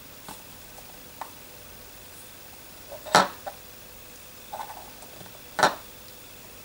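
Small clicks and two short knocks, about two and a half seconds apart, as the white-gold Cartier Astro Love ring, folded into a sphere, is handled and set down on the table.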